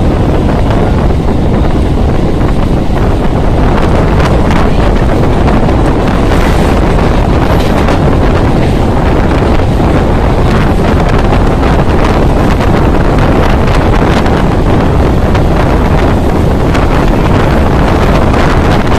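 Wind blasting across the microphone at the open door of a moving local train, mixed with the steady running noise of the coach on the track.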